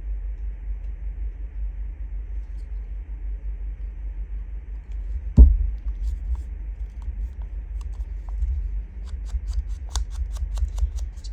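Folded paper being handled and pressed on a tabletop over a steady low rumble, with one loud knock about five seconds in. Near the end, a run of quick light ticks as an ink blending tool is dabbed along the edges of a small book-page envelope.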